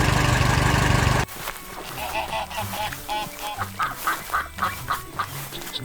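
Loud steady machine-like noise that cuts off abruptly about a second in, followed by a run of short, repeated animal calls, like farm birds, over a low hum.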